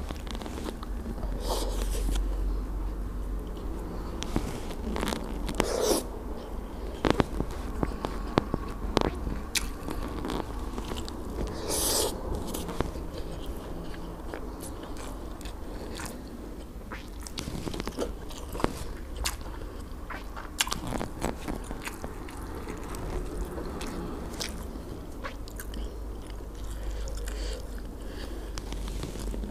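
Close-miked chewing and wet mouth sounds of a person eating grilled fish and rice by hand, with many scattered small clicks and a few brief louder noisy bursts.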